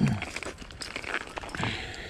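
Plastic bags rustling and crinkling as they are handled, with two dull thumps, the louder one at the start and another near the end.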